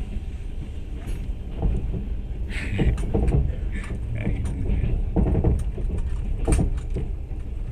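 Inside a train carriage standing still: a steady low rumble with scattered knocks and clatters, the loudest about six and a half seconds in.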